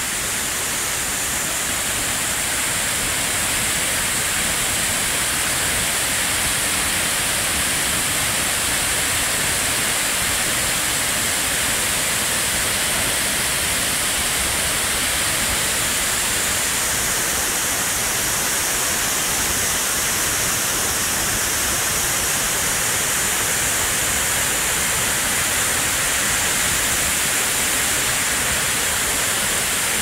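Large waterfall pouring onto rocks close by: a loud, steady rushing of falling water that holds even throughout.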